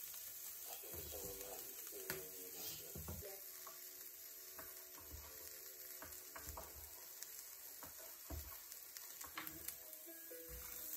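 Sliced vegetables sizzling steadily in a hot frying pan, a faint hiss. Every few seconds comes a short soft knock of a knife or spatula on a wooden cutting board.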